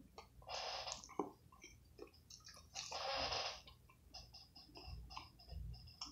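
A person chewing a mouthful of chicken sandwich with small wet mouth clicks. Two long breaths come through, about half a second in and again about three seconds in.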